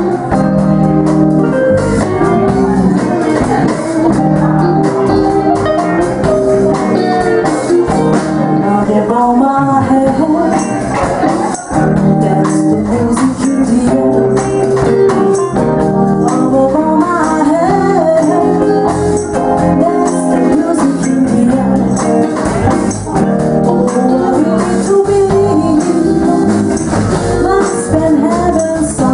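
Live band playing: a woman singing into a microphone over drums and an electric keyboard, with steady cymbal strikes.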